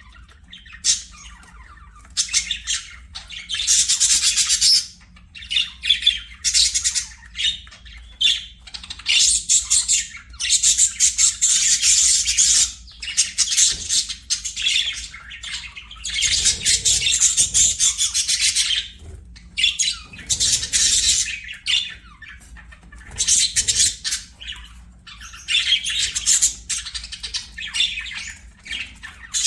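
Budgerigars warbling and chattering, a dense high-pitched twittering that comes in spells of a few seconds with short pauses between.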